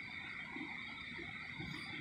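Steady drone inside an airliner cabin: the jet's engines and air system running, a constant high whine over a low rumble.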